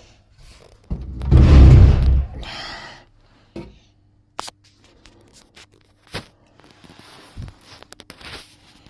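A loud scraping rustle about a second in, followed by a few sharp knocks and softer scraping.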